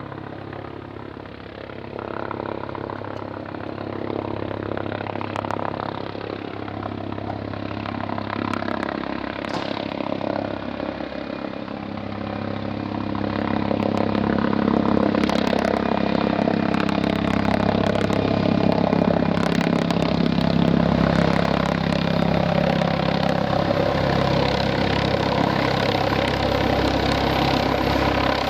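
MD 902 Explorer twin-turbine NOTAR helicopter running with a steady engine and rotor sound, growing louder about halfway through.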